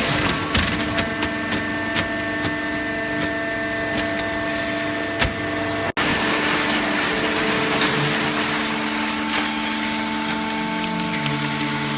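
Hydraulic cardboard baler running: a steady machine hum with many sharp clicks and crackles. The sound breaks off for an instant about six seconds in.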